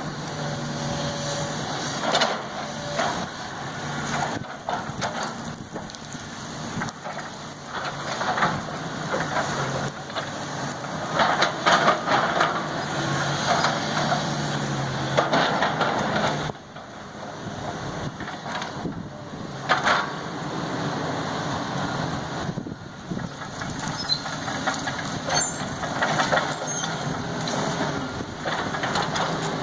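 Backhoe's diesel engine running steadily, with louder noisy bursts of crunching and scraping every few seconds.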